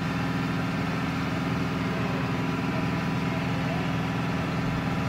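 A motor-vehicle engine idling steadily, an unchanging low hum.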